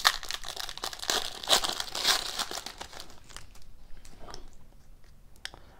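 Foil wrapper of a hockey card pack torn open and crinkled by hand, loudest in the first two and a half seconds, then fading to softer rustles and light clicks as the cards are handled.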